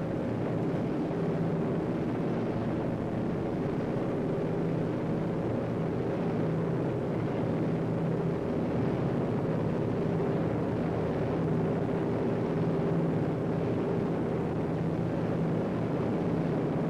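Propeller aircraft engines droning steadily in flight, a continuous even hum with no change in pitch.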